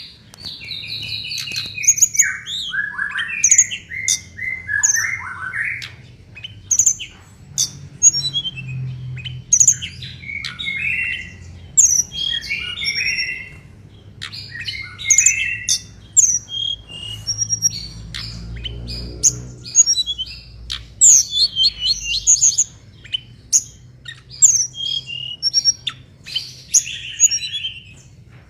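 Mangrove blue flycatcher (tledekan bakau) in full, vigorous song: a rapid, varied stream of high chirps, trills and sweeping notes broken by short pauses, over a faint steady low hum.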